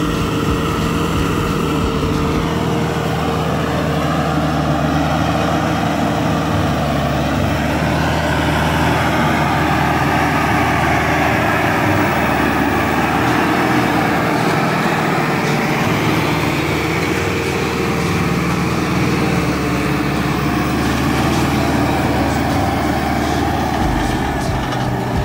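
Diesel tractor engine running steadily under heavy load while pulling a five-shank subsoiler through the ground, with the sound of the shanks tearing through the soil.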